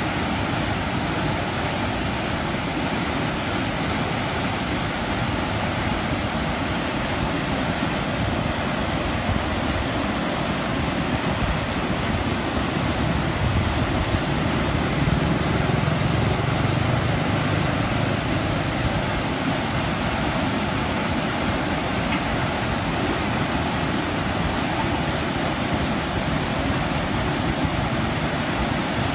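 Water rushing steadily at a dam weir, an even roar with no pitch or rhythm, a little fuller for a few seconds midway.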